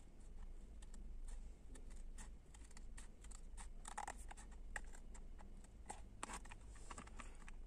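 Scissors cutting through a cardboard-backed plastic blister pack: an irregular run of small snips and crackles, with a few sharper ones partway through.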